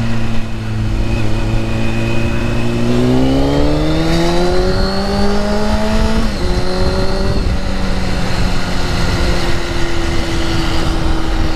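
Motorcycle engine heard from the rider's seat over wind noise: it runs steady, then its pitch rises for about three seconds as it accelerates, drops suddenly with a gear change about six seconds in, and settles into a steady cruise.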